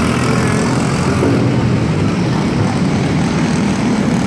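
Several microstock dirt-track race cars' engines running together in a steady drone, with no hard acceleration.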